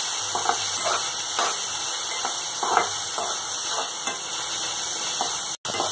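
Chopped tomatoes and onion frying in oil in a steel kadhai, sizzling steadily while a spatula stirs and scrapes against the pan, making short scrapes and taps. The sound cuts out for an instant near the end.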